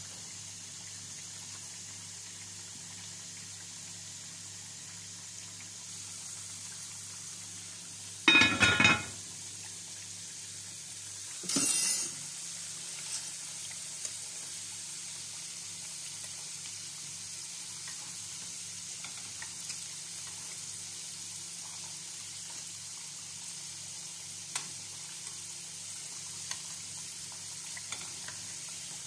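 Steady sizzle of potato chunks frying in oil next to a simmering pot of rice. About eight seconds in there is a loud, ringing metal clatter, the lid going onto the rice pot, then a brief louder hiss a few seconds later, and a few light clicks of a utensil near the end.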